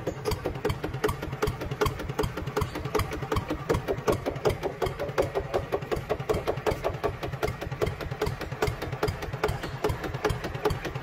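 Small RC model tractor running steadily with a fast, even, engine-like knocking and rattle.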